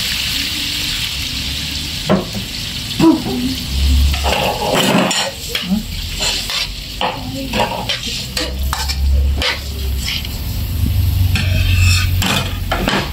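Water poured into a hot metal wok of squid and sauce, hissing as it hits, then a slotted metal spatula scraping and knocking against the wok in quick strokes as the squid is stirred in the sizzling liquid. A low steady rumble runs underneath.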